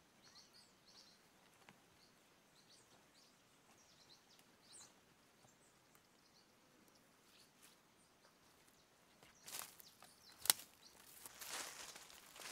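Faint, scattered chirps of small birds over quiet outdoor ambience; then, about nine and a half seconds in, footsteps crunching and rustling through dry fallen leaves, with one sharp click about a second later.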